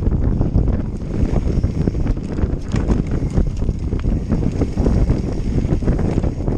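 Wind noise buffeting the microphone on a fast mountain bike descent, over tyres rolling on a dirt trail and the bike rattling with many small knocks over rough ground.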